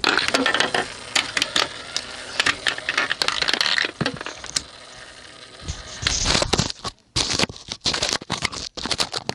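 Steel balls clattering and rattling in a retro Nishijin 'Red Lion' hanemono pachinko machine, a dense run of sharp clicks that starts suddenly, thins out about halfway, and comes back in loud bursts near the end.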